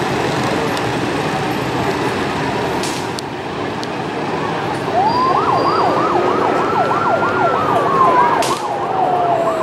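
A group of Harley-Davidson police motorcycles running in formation; about halfway through, a siren starts a fast yelp, sweeping up and down about two to three times a second, while a second siren tone slides slowly downward near the end.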